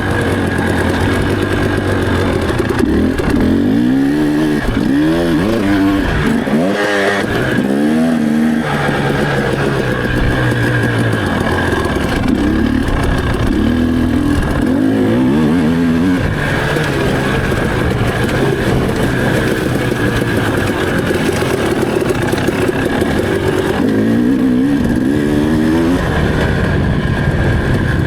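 Enduro motorcycle engine running under riding, its pitch repeatedly climbing and dropping as the throttle is opened and closed.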